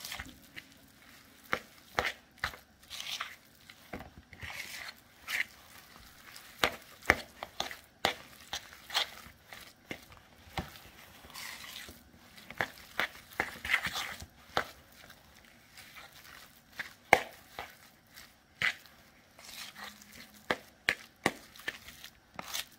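A fork mixing a thick cheese and sausage stuffing in a bowl: irregular sharp clicks as the fork knocks against the bowl, with short scraping and mashing sounds between them.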